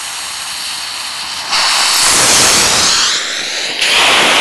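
Firework thrust tubes burning with a loud, steady rushing hiss as they drive a pumpkin along a rail. The hiss grows louder about a second and a half in, and again near the end.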